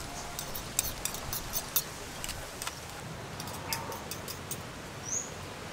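Scallops in their shells crackling on a grill, giving scattered sharp, irregular ticks over a steady low background. A short rising chirp comes about five seconds in.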